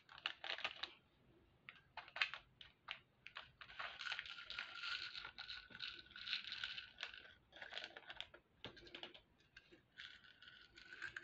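Small plastic bag crinkling as it is handled and opened, with small metal jump rings clicking against each other as they are tipped out into a hand. The sound comes in faint, irregular clicks and rustles.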